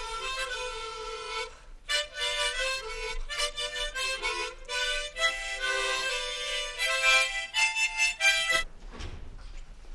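Several children playing harmonicas together, a simple tune in chords in short phrases. The playing stops near the end.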